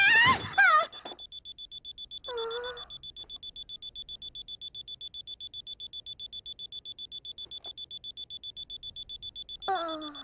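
Alarm clock beeping rapidly and steadily at a high pitch. A girl's sleepy groans are heard over it at the start and again about two seconds in, and a yawn comes near the end.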